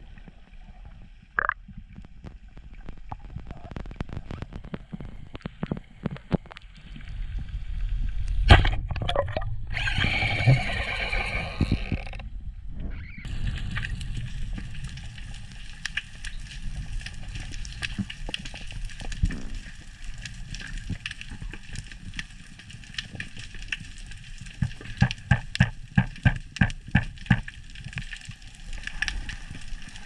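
Underwater sound heard through an action camera's housing: water rushing and gurgling with scattered clicks and knocks. A loud burst of rushing water comes about nine seconds in, and near the end there is a quick run of clicks, about four a second.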